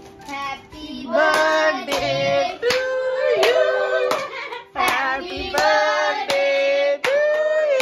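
Several people singing a birthday song together, clapping along in time about once every two-thirds of a second.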